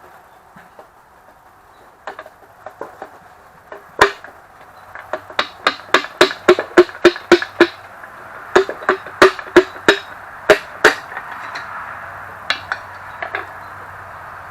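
Hammer tapping a connecting rod and piston out of the cylinder bore of a Ford 351 Windsor V8 block: sharp, ringing knocks, with one loud blow about four seconds in, then quick runs of taps at about three a second.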